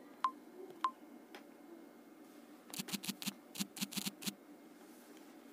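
Smartphone touch clicks as the phone is operated. Two short ticks with a brief ring come about half a second apart, then a quick run of about ten sharp taps in under two seconds, over a faint steady hum.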